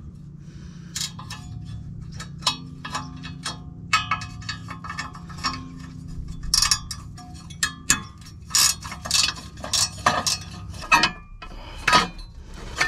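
Repeated short metallic clinks and knocks of hand tools working a cover plate off a tractor near the starter, over a steady low hum that stops near the end.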